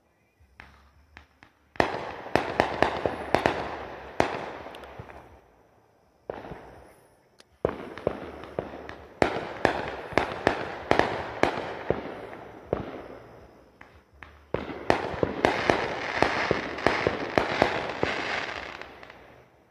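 Aerial fireworks bursting in three volleys, about 2, 7.5 and 14.5 seconds in. Each volley is a run of sharp bangs and dense crackling from gold crackling stars that fades out over several seconds.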